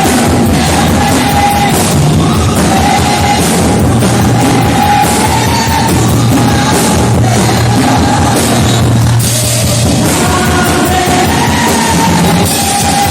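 Loud live band music with drums and a voice singing over it, in the style of rock-leaning worship music.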